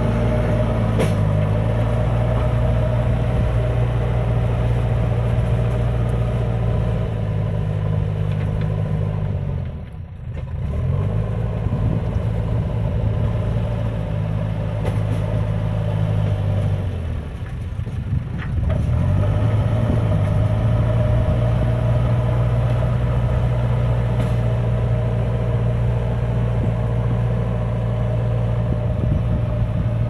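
JCB 3DX backhoe loader's diesel engine running at working revs as it pushes soil with its front bucket. The revs drop away about ten seconds in and again around eighteen seconds, each time climbing back up.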